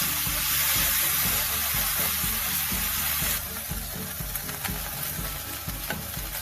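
Food sizzling in hot oil in a frying pan, a steady hiss that turns quieter a little past halfway.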